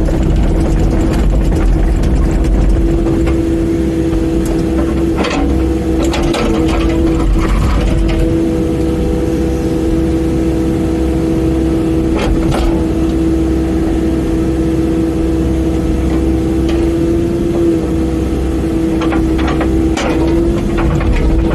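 Mini excavator running steadily with a constant whine from its engine and hydraulics, broken by a few sharp knocks and clanks as it works.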